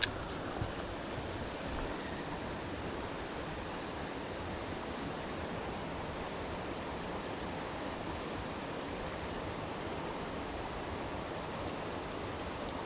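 Steady rushing water of a small mountain trout stream.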